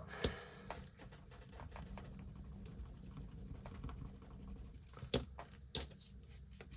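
Faint rustling and small taps of hands handling paper and small items, with two sharper clicks about five seconds in.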